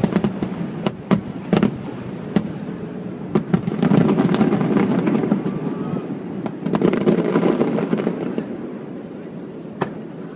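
Fireworks bursting overhead. Several sharp bangs come in the first two seconds, then two stretches of dense rapid crackling as salvos go off, and one more single bang near the end.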